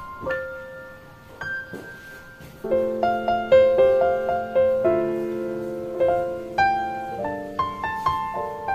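Background piano music: a gentle melody of single notes, joined by fuller chords and a held bass note about two and a half seconds in.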